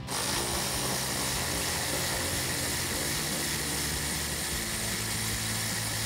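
A cordless electric ratchet with a 10 mm socket runs steadily, backing a bolt out of a plastic wheel well liner.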